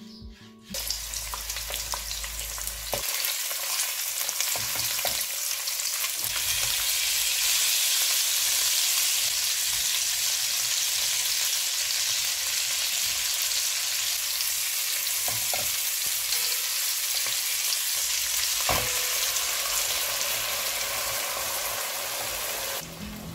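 Mackerel pieces frying in vegetable oil in a pan: a steady sizzling hiss that grows louder about six seconds in, with a few faint knocks.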